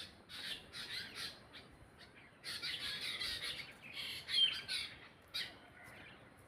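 Birds calling with harsh squawks: a few short calls in the first second and a half, then a denser run of calls from about two and a half to five seconds in.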